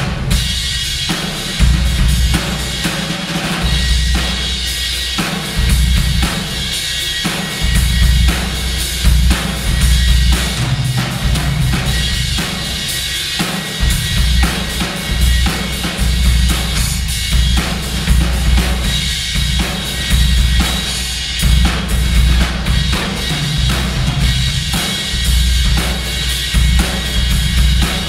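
Acoustic drum kit played in a continuous groove: kick drum, snare and cymbals, with heavy room echo from an unfinished room that is too reverberant.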